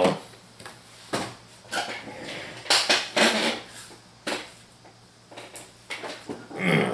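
Stiff plastic blister packaging crackling and crinkling as it is handled and crumpled, in several short irregular spells with quiet gaps between.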